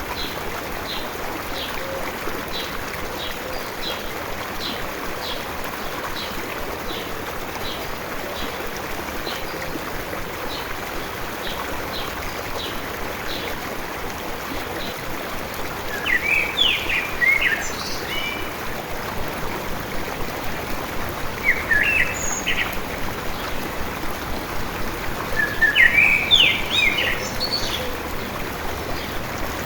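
Steady rushing of a flowing stream, with a bird calling a short chirp about one and a half times a second through the first half. In the second half, short bird song phrases sound three times, louder than the stream.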